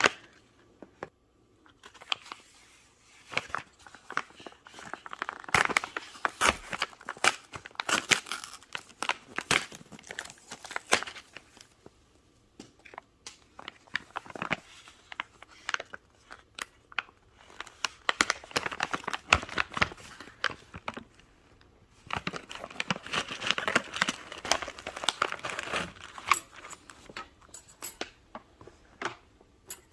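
Packaging being opened by hand: crinkling, rustling and tearing, with scattered sharp clicks and handling noises, busiest in two stretches.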